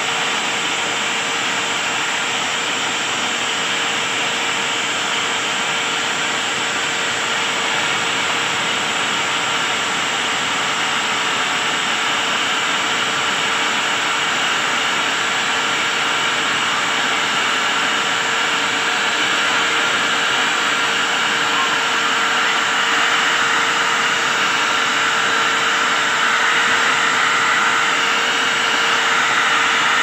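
Angle grinder fitted with a wire cup brush running steadily against rusted refrigerator sheet metal, scouring off the rust. It gives a constant motor whine over a scraping hiss, growing a little louder toward the end.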